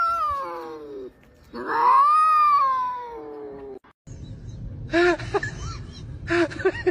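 Cat yowling in two long drawn-out calls, the first falling away, the second rising then falling. About four seconds in it gives way to a steady rustling with several short rising-and-falling squeaks.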